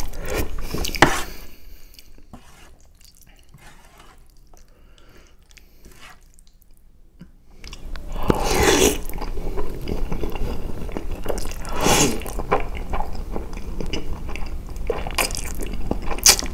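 Close-miked eating of spaghetti bolognese: noodles slurped into the mouth and chewed wetly. It is loud at first, softer for a few seconds, and loud again from about halfway on, with strong slurps a little past halfway and near the end.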